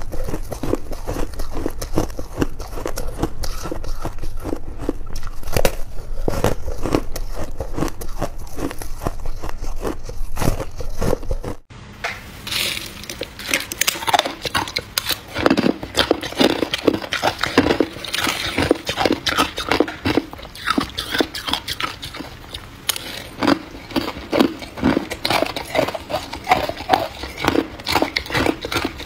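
Frosted ice being bitten and crunched close to the microphone, a dense crackling of breaking ice. About twelve seconds in, the sound cuts off abruptly and turns to sharper, more separate crunches.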